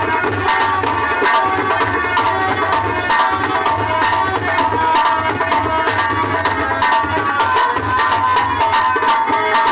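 Background music with a quick tabla-style hand-drum beat under a melody.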